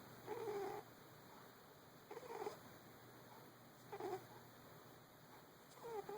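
Domestic cat snoring in its sleep: four short, pitched snores, about one every two seconds with each breath.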